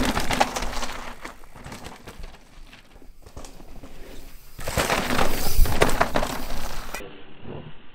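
Mountain bike tyres crunching and crackling over loose, dry dirt and gravel as riders come down the trail: one pass fading out about a second in, and a second, louder pass about four and a half seconds in that lasts some two seconds.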